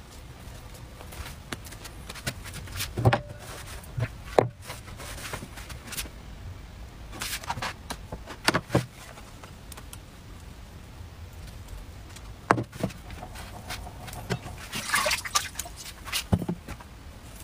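Scattered light knocks and clatter as a plastic electric crepe maker is turned over and set down on a wooden tabletop, with a brief scraping rustle a little before the end, over a low steady hum.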